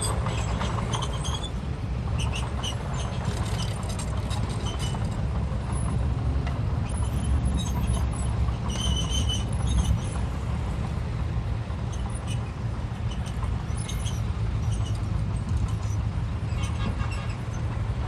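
Heavy diesel machinery engine running steadily under load, with short high metallic squeaks and clinks coming and going over it.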